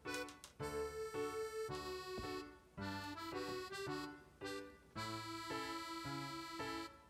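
Background music: a light instrumental tune of held melody notes over a regularly changing bass line.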